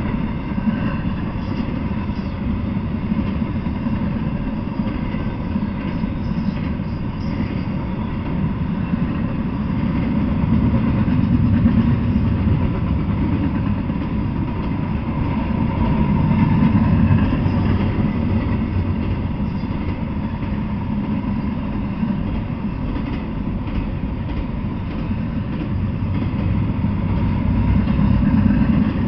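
Double-stack container freight train rolling past: a steady low rumble of steel wheels on the rails and the moving well cars, swelling louder several times as the cars go by.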